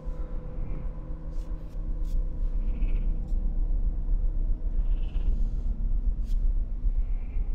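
Gusting wind rumbling in a snowstorm, growing heavier about two seconds in, with a few short high squeaks and faint ticks over it.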